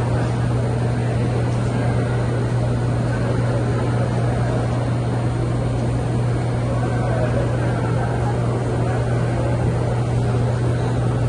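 Steady low mechanical hum of restaurant kitchen machinery, such as a ventilation hood fan or refrigeration, running without change, with faint background murmur.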